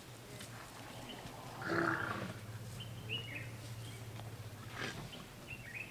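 A short, loud, breathy sound from an African elephant about two seconds in, over a steady low hum, with a few faint bird chirps.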